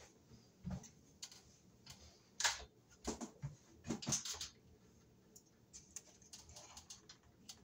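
Irregular light clicks, taps and rustles of ceiling-fan blades and hardware being handled, loudest about two and a half seconds in and again around four seconds in.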